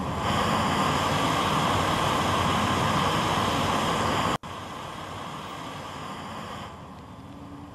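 A canister gas stove burner hissing steadily under a pot of water at a rolling boil. About four seconds in, the sound cuts off sharply and comes back as a quieter steady hiss.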